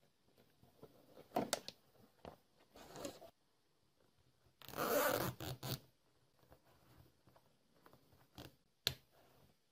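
Thin cord being pulled through thick pile carpet. It makes a series of short rasping, zipper-like pulls, the loudest lasting about a second around the middle, with a sharp click near the end.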